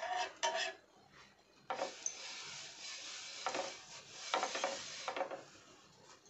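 A steel spatula scraping and knocking against a flat tawa griddle as toasting bread is flipped and pressed. A few sharp knocks come at the start, then about three and a half seconds of continuous scraping cut by several harder strokes, stopping a second before the end.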